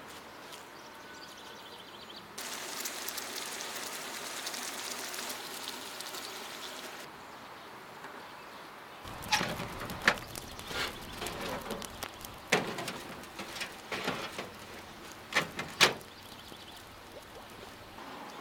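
Metal clicks and clunks of a wood-burning kitchen stove's oven door being worked by a gloved hand, a run of sharp knocks over several seconds. Before that, a few seconds of steady hiss that starts and stops abruptly.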